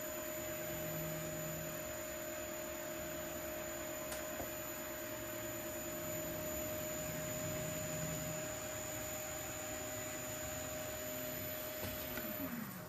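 Wood lathe running steadily with a constant whine and hum, spinning a burl and epoxy resin platter. Near the end a tone falls in pitch as the lathe is switched off and spins down.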